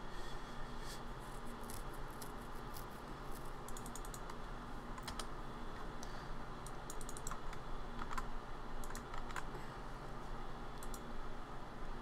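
Typing on a computer keyboard: irregular keystrokes with a few quick runs of keys.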